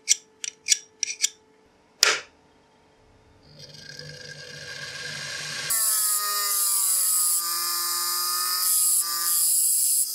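A few light metal clicks, then a sharp click, then a bench grinder runs up. From about halfway in, an old chisel is ground on its stone wheel to sharpen the bevel: a loud, steady grinding hiss over a motor whine that wavers in pitch as the steel is pressed in.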